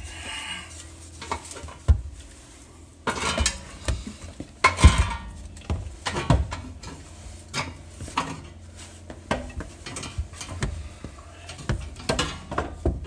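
Irregular metal clinks and clanks of hand tools and the manual transmission casing being handled while the gearbox is fitted to the engine, with a cluster of louder ringing knocks about three to five seconds in.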